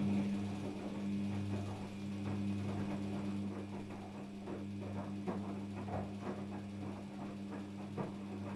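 Daewoo DWD-FT1013 front-loading washing machine early in a Cotton 60°C wash: a steady electrical hum with irregular water splashing and sloshing, typical of the machine filling with water.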